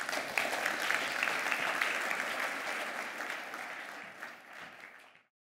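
Audience applauding, with many hands clapping. The applause starts right away, tapers off gradually and cuts off abruptly a little over five seconds in.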